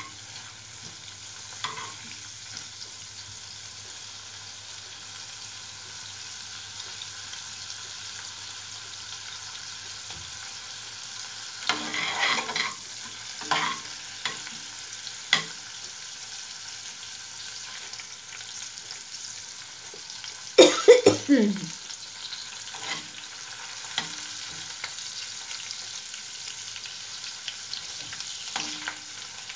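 Large prawns and garlic frying in oil in a nonstick frying pan, a steady sizzle throughout. A spatula scrapes and knocks against the pan now and then as they are turned, loudest about two-thirds of the way through.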